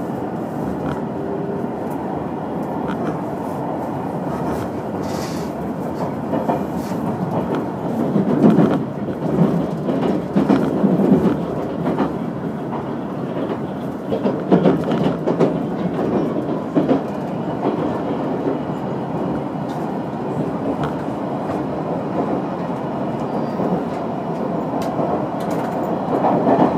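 Limited express train running on the Yosan Line, heard from inside the passenger car: a steady rumble of wheels on rail. Two stretches of louder clickety-clack clatter come about 8 and 15 seconds in.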